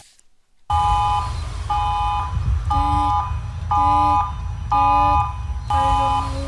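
Emergency alert tone: a chord of steady electronic tones beeping about once a second, six times, with a lower tone added from the third beep on. It starts just under a second in.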